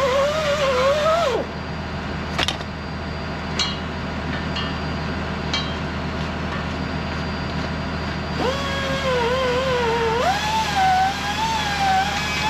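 Excavator's diesel engine running steadily with a wavering hydraulic whine that stops about a second and a half in and returns near the end, stepping up in pitch. A few sharp metal clanks fall in between.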